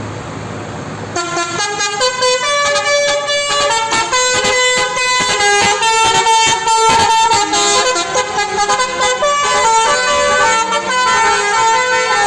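Bus telolet basuri horn, a multi-note musical air horn, playing a quick melody of stepping notes that starts about a second in and carries on throughout.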